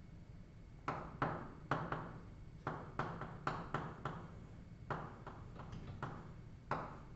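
Chalk writing on a blackboard: a string of irregular sharp taps and short scratchy strokes in quick clusters with brief pauses between, as letters and a sketch are drawn.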